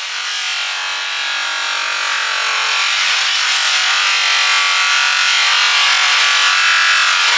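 An abrasive power tool grinding or sanding steadily against the knife work, a continuous scraping hiss that swells louder over the first few seconds and then holds.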